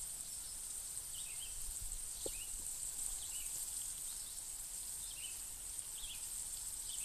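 Outdoor summer ambience: a steady high insect drone, with short bird chirps every second or so.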